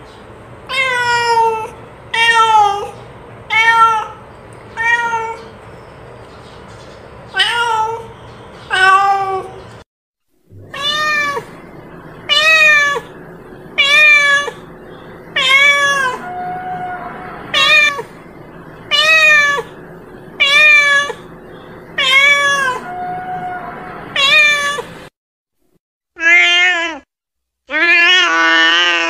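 Domestic cat meowing over and over, short rising-and-falling meows about one a second. There is a short gap about ten seconds in and another near the end, where a couple of longer, louder meows follow.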